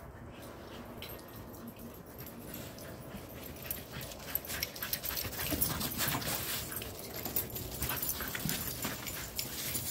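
Dogs running about in snow: crunching footsteps that come thicker and louder from about four seconds in.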